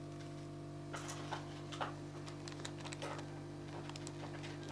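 Faint scattered clicks and taps from fingers handling a small egg-shaped party-favour piece, over a steady low hum.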